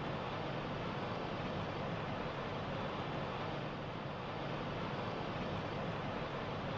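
Steady rushing noise with a low rumble underneath, unchanging throughout.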